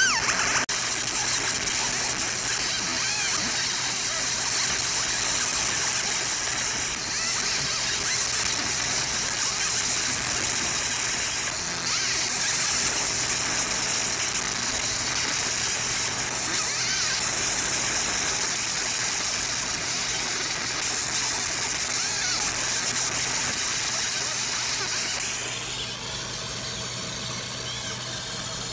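Fiber laser engraver deep-marking stainless steel: a steady high-pitched hiss of the beam ablating the metal, over a steady low hum. It drops somewhat quieter near the end.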